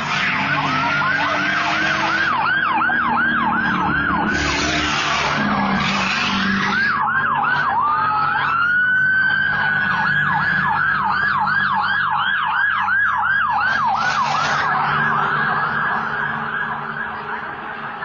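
Several police car sirens sound at once, mostly in a fast yelp of two or three falling sweeps a second, with one slower rising wail about eight seconds in. Low engine rumble runs underneath, and bursts of rushing noise come about four to seven seconds in and again near fourteen seconds as the vehicles speed past.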